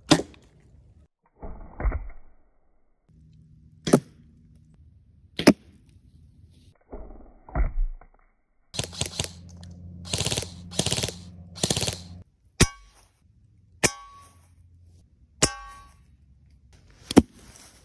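A string of sharp shots and hits against a pumpkin from a compound bow and small airsoft and pellet guns, spaced a second or two apart. In the middle comes a burst of rapid fire lasting about three seconds over a steady motor hum.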